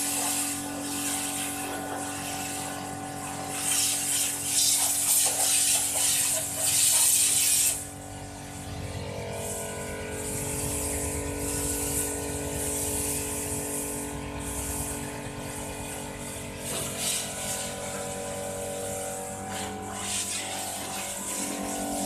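Water spraying from a self-service car wash machine's spray gun onto a van's bodywork, over the steady hum of the machine's pump. The spray stops abruptly about eight seconds in, leaving the pump hum.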